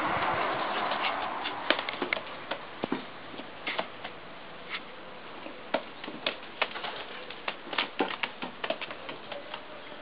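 A pigeon flapping its wings briefly at the start, then pecking at grain in a metal scoop: many irregular sharp taps.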